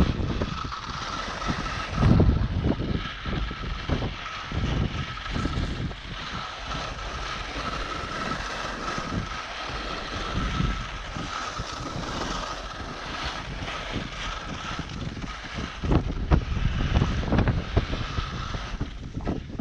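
Wind buffeting a helmet camera's microphone in uneven gusts while skis hiss and scrape over the snow during a fast downhill run, with a steady faint high whistle underneath.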